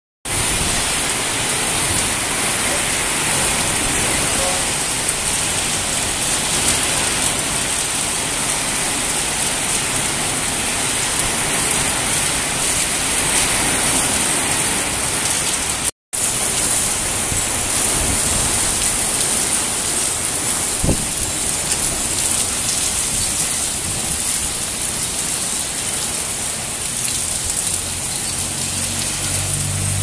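Heavy rain pouring down onto a street in a steady, loud hiss, dropping out for an instant about halfway through.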